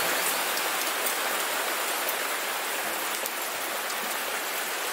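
Heavy rain pouring steadily, a dense even hiss of falling drops.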